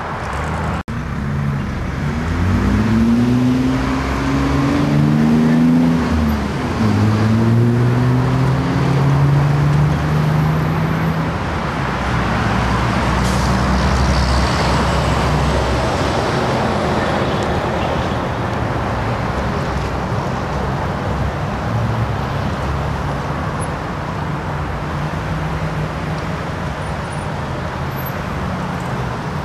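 Vehicle engines and traffic: over the first ten seconds or so an engine climbs and falls in pitch as it pulls away and changes gear, then a steady traffic hum continues. The sound cuts out briefly just under a second in.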